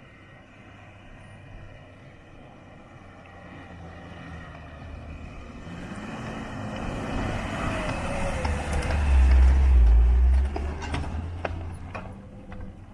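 A new Land Rover Defender towing an off-road caravan drives by on a sand track, its engine and tyres growing louder as it approaches. The sound peaks in a deep rumble as it passes close, about nine to ten seconds in, then fades, with a few sharp ticks as it goes by.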